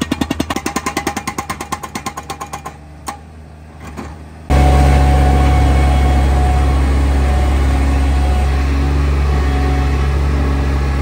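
Hydraulic breaker on a Bobcat MT100 mini track loader hammering concrete in rapid, evenly spaced blows, stopping about two and a half seconds in. After a short lull, the mini track loader's engine runs steadily and loudly at close range.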